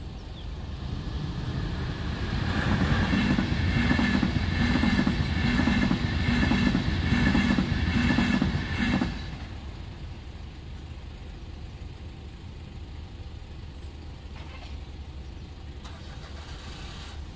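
ÖBB Railjet passenger train passing over a level crossing. The sound builds, then the wheels clack in an even rhythm, about one and a half beats a second, and it cuts off suddenly about nine seconds in as the last coach clears.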